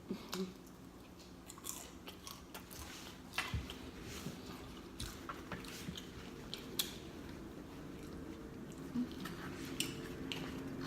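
Close-up chewing and biting of fried chicken, with scattered sharp crunches of the crispy breaded skin.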